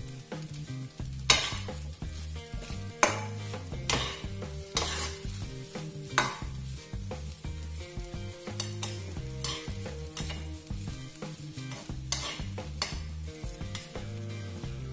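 Spatula stirring and tossing fried rice with bean sprouts in a nonstick wok over a gas flame, with a light sizzle. The spatula knocks and scrapes against the pan: a handful of louder strikes about a second apart in the first six seconds, then quicker, lighter scraping.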